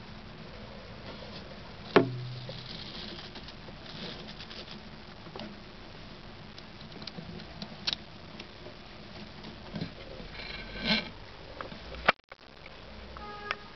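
Anerythristic corn snake's tail tapping and rustling against bark chips and pebbles in short, scattered bursts. This is its defensive tail vibration, which mimics a rattlesnake's rattle. One sharp knock about two seconds in is the loudest sound.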